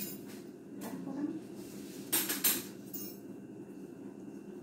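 Kitchen utensils and cookware clinking, a short cluster of sharp metal clinks about two seconds in and lighter ones around it, over a steady low hum.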